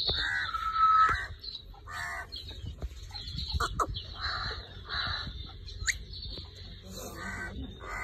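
Green pet parrot squawking: a run of short, harsh calls roughly one a second, with a louder whistled note near the start.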